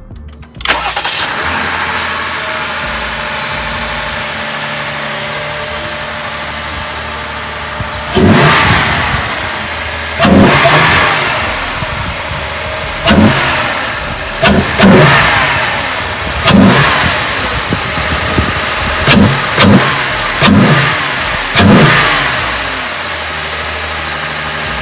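A 2020 Jeep Grand Cherokee's 3.6-litre V6, breathing through a newly fitted K&N cold air intake, starts about half a second in and idles. From about eight seconds it is blipped in about ten short revs, each falling back, then it settles to idle again. No hissing of an intake leak is heard.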